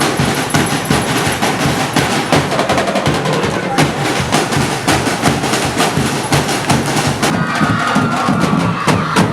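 Loud percussion music with rapid, dense drumming, snare and wood-block-like hits. A wavering higher tone joins about seven seconds in.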